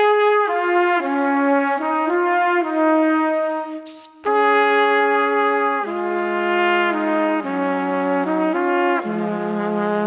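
Background music: a slow melody of held notes in a brass-like sound, dropping away briefly about four seconds in, with a lower second part joining from about six seconds.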